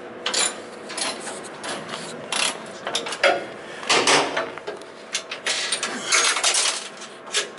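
Metal hand tools clicking, clanking and scraping on metal in irregular bursts as bolts are worked loose.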